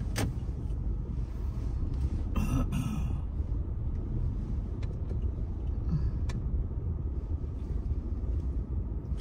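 Steady low rumble of a car moving slowly, heard from inside the cabin.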